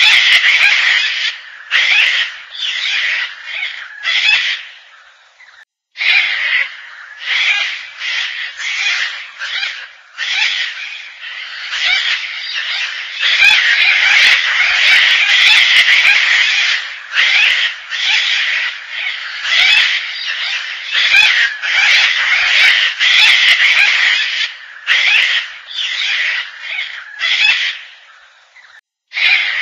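Gang-gang cockatoos calling: a rapid series of harsh, rasping calls, one after another, broken by two short pauses.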